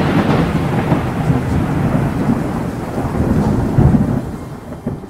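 Rolling thunder with rain: a long noisy rumble that slowly fades, swelling up again a little under four seconds in.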